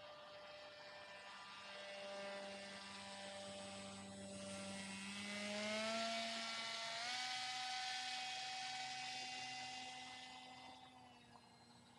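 Motor and propeller of a radio-controlled paramotor flying past: a steady hum that grows louder toward the middle, rises in pitch in two steps around the middle, then fades near the end.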